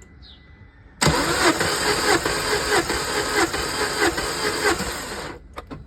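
Peugeot 207 engine turned over on its starter for about four seconds for a compression test of cylinder number 4, with a regular pulsing rhythm, starting suddenly and cutting off abruptly. The cylinder reads 170 PSI, good compression now that the broken intermediate rocker arm has been replaced.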